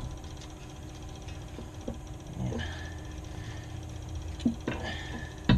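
Light knocks and creaks from a pry bar levering down the lower control arm to line the ball joint stud up with the steering knuckle, with a sharper, louder knock near the end, over a low steady hum.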